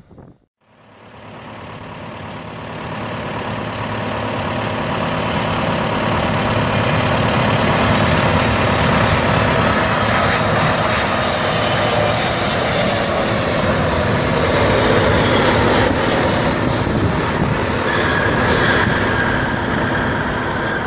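Jet engines of a Boeing 777 landing: the noise fades in about a second in and builds over several seconds to a steady loud rumble. An engine whine falls in pitch in the middle as the airliner passes.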